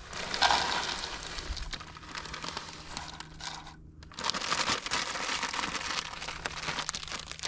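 Crinkling and rustling of something being handled, with a brief pause about four seconds in.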